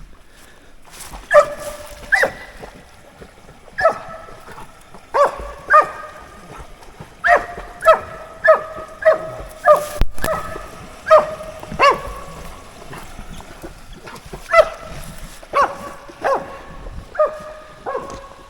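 Dog barking repeatedly, about twenty short barks at irregular intervals.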